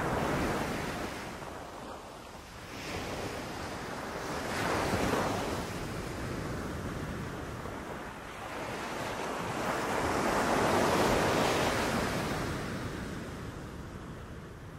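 Sea waves breaking and washing up a beach, swelling and ebbing in three surges: one at the start, one about five seconds in, and a longer, louder one around ten to twelve seconds in.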